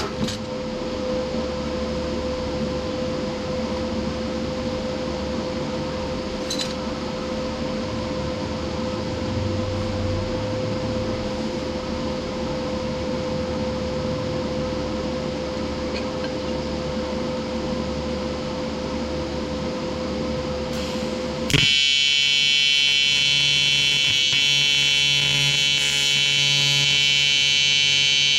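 A steady low hum for most of the stretch, then about three-quarters of the way in the PrimeWeld 225X's AC TIG arc strikes on aluminum and sets in abruptly with a loud, steady, harsh buzz.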